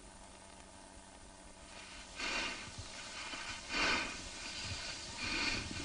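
Cattle breathing heavily during mating: loud, noisy breaths or snorts about every second and a half, starting about two seconds in, over a faint steady hiss.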